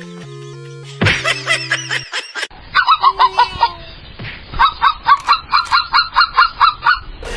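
Brief music, then a bird honking over and over, about three calls a second, from about two and a half seconds in until just before the end.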